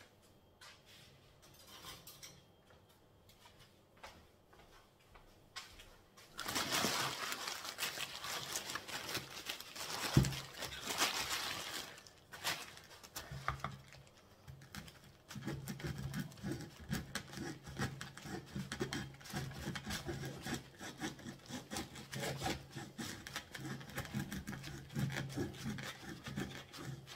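A knife sawing back and forth through a dry compressed coconut coir brick, in steady rhythmic scraping strokes; the brick is hard to cut. Before the sawing starts there is a few seconds of plastic bag rustling with a single knock.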